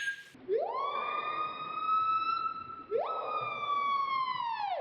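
Two long whistle-like tones, each sliding quickly up, holding high, then gliding down, the second starting about three seconds in. Together they sound siren-like.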